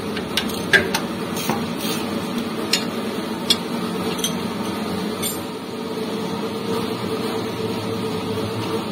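Hand wrench working the transmission mounting bolts under a Daihatsu Gran Max: short metallic clicks and clinks, scattered irregularly and mostly in the first half, over a steady hum.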